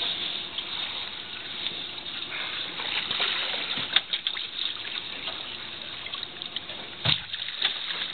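Sea water lapping and trickling against the side of a small boat, with a couple of short knocks.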